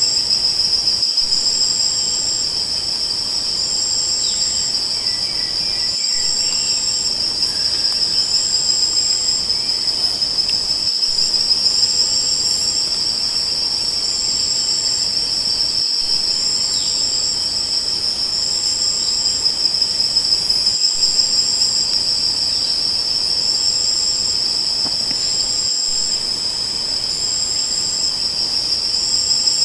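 Insect chorus: a steady, unbroken high trill, with a second, higher-pitched insect calling above it in short, regularly spaced bursts.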